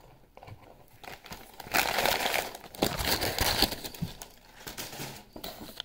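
Paper crinkling and crumpling as it is handled, loudest for about two seconds starting a little under two seconds in, then fading to softer rustling.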